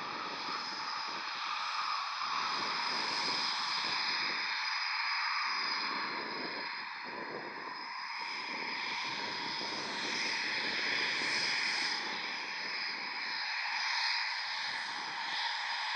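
Eurofighter Typhoon twin Eurojet EJ200 turbofans running at taxi power: a steady high-pitched jet whine over a constant rush.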